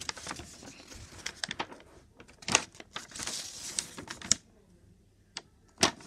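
Irregular clicks, taps and rustling close to the microphone, as of small objects being handled and moved about, easing off after about four seconds and ending with two sharp clicks.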